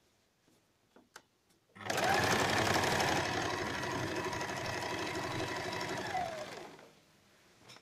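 Electric domestic sewing machine stitching an elastic waistband onto trousers. It starts about two seconds in, runs steadily for about five seconds, then slows and stops.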